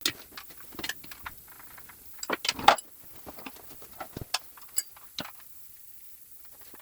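Hand tools clinking and knocking on the sump fasteners of a Gardner 2LW diesel engine as they are undone: scattered metallic clicks, with a louder cluster of knocks about two and a half seconds in.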